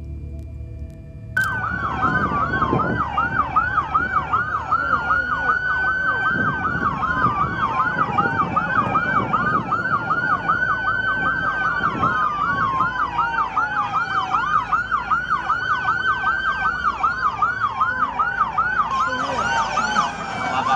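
Police car sirens starting suddenly about a second and a half in. One siren yelps in fast rising-and-falling sweeps, about three a second, and another wails in slower falling glides over it.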